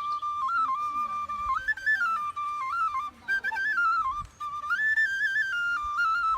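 Music: a solo flute-like melody moving in short stepped notes, with no drone underneath.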